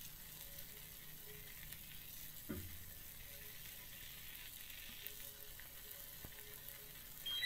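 Food sizzling faintly on a Blackstone flat-top griddle, a steady light hiss, with a soft thump about two and a half seconds in.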